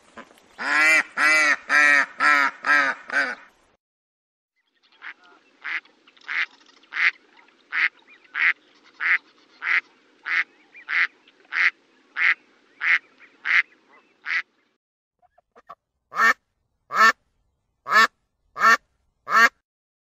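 Ducks quacking in three separate runs: a fast burst of about seven loud quacks, then a steady series of about fifteen quieter quacks over faint background noise, then about five spaced quacks near the end.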